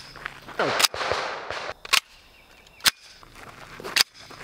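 A CZ Scorpion EVO 3 S1 9mm semi-automatic carbine firing four single shots, about a second apart.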